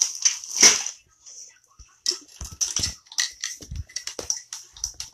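Plastic toy packaging crinkling and rustling as it is handled, in a string of short, sharp, uneven crackles.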